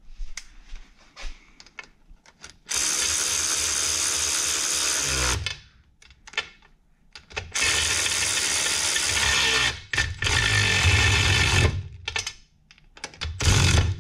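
Cordless impact wrench running in four bursts, the first three a couple of seconds each and the last brief, driving down the 7/16-inch bolts of a U-joint strap kit on a truck's rear driveshaft. The motor winds down in pitch as each burst ends, with small clicks of handling between.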